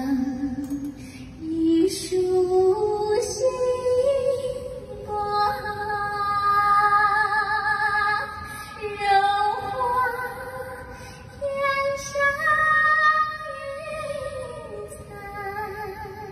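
A woman singing solo into a microphone, amplified. Her voice climbs in steps over the first few seconds, then holds long notes with a wavering vibrato.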